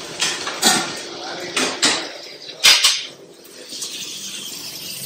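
Stainless-steel cookware clattering: a steel lid lifted off a steel pot, with several sharp metal clinks, the loudest about two and a half seconds in, over a steady low hiss.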